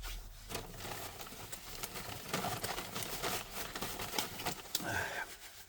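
Eating sounds close to the microphone: a man chewing McDonald's food, a dense run of clicks and crackles throughout.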